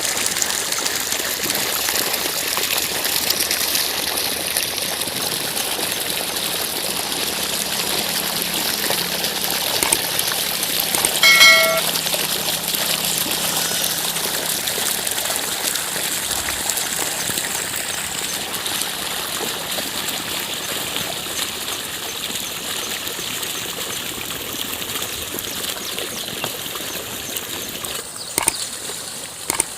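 Steady rush and trickle of water in a flooded paddy field, with one short, high-pitched call about eleven seconds in.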